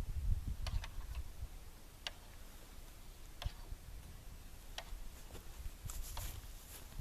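Sharp single ticks about every second and a half, over a low rumble.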